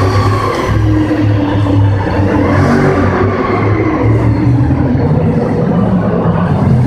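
A car's engine running hard with a deep, steady drone, its pitch wavering slightly, as the car spins tight circles on a concrete floor.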